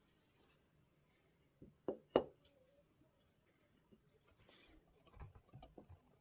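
A wooden blank being handled at a stopped lathe: two sharp knocks about two seconds in, then a brief scrape and a few softer knocks as the blank is set against the headstock.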